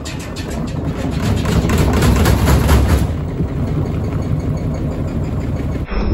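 Washing machine drum spinning up, a low rumble growing louder with a fast, regular knocking from the drum. The sound changes abruptly near the end.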